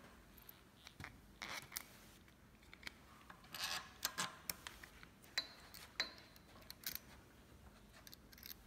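Quiet, scattered clicks and brief scrapes of a plastic bicycle reflector and its metal mounting bolt being handled and fitted to the bracket.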